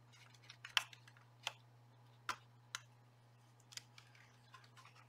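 Hands handling an opened portable radio's circuit board and plastic case parts: about six sharp, separate small clicks and taps, over a steady low hum.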